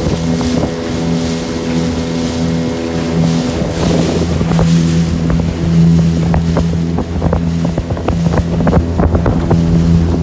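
A small motorboat's engine running steadily while the boat is underway. From about four seconds in, the hull knocks and slaps irregularly against small waves, and there is some wind noise on the microphone.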